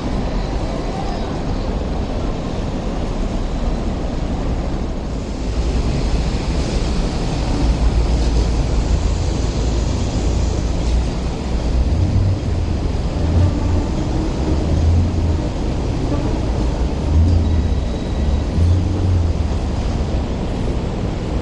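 Street noise around Hong Kong double-decker trams: a steady rumble of trams and traffic, with wind buffeting the microphone, louder from about five seconds in.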